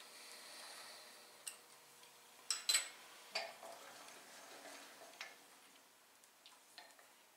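Faint, scattered metal clicks and clinks from steel tooling handled on a milling machine table, with an Allen key working a V-block's hold-down clamps. The loudest knocks come about two and a half seconds in.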